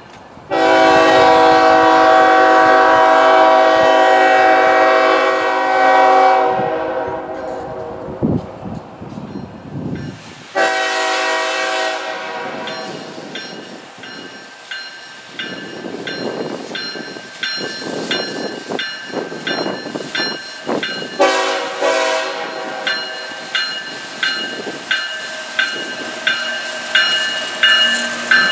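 Diesel freight locomotive's air horn sounding one long blast of about six seconds, then a short blast about ten seconds in and another about twenty-one seconds in. Between the blasts the passing train rumbles, and in the second half a regular clicking, about one a second, grows louder.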